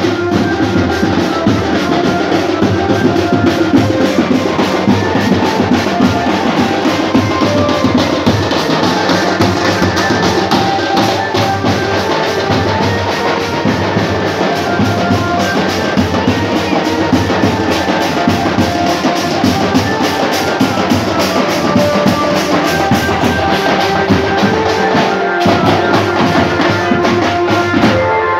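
Loud music with a steady drum beat and a changing melody over it.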